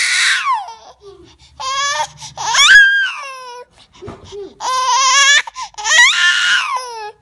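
Infant crying: a run of loud, high-pitched wailing cries, each a second or two long, with short gasping breaks between them.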